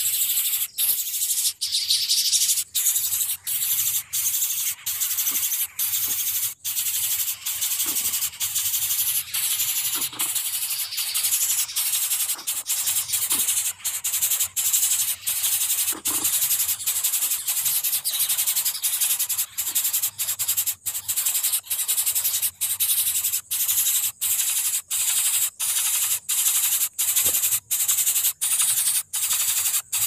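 Shrill, high-pitched insect chorus, a continuous buzzing hiss broken by short regular gaps about twice a second.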